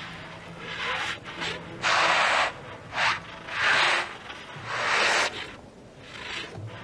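Contemporary ensemble music built from breathy air sounds: a string of hissing swells about half a second long, about one a second, over a faint low held tone. The swell a little after two seconds in is the loudest.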